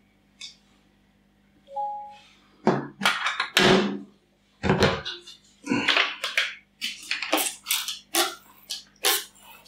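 A few loud knocks from plastic tubs being handled, then a hand pump spray bottle squirting quick hissy sprays of water, about three a second, dampening one corner of a tarantula enclosure's substrate.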